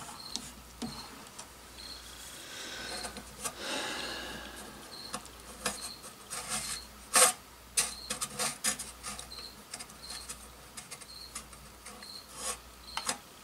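Hands working on the oven's wiring and small parts: irregular clicks, taps and rubbing, with a scraping patch about three seconds in and a sharper click about seven seconds in. A faint short high chirp repeats about twice a second.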